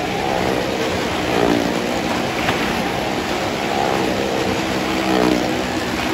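Car and motorcycle engines running hard as they circle the vertical wooden wall of a well-of-death pit. The engine note swells and fades about once a second as the vehicles go round.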